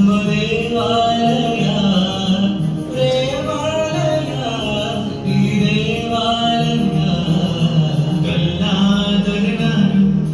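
A recorded song, a singing voice carrying a gliding melody over steady instrumental backing, played back through a portable loudspeaker as dance music.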